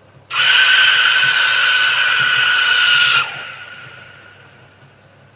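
A loud, shrill, scream-like sound from up in the sky, of unknown origin, likened to a banshee. It starts abruptly, holds one steady high tone with a hiss above it for about three seconds, then drops off suddenly and fades away.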